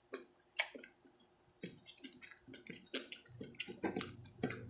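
Faint eating sounds: scattered wet clicks and smacks of a person chewing and handling food.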